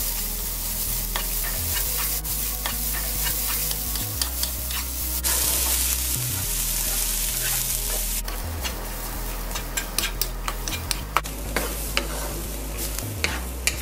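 Wooden spatula stirring and scraping grated coconut around a nonstick wok, over a steady sizzling hiss as the coconut heats. The scrapes and taps come quicker in the second half.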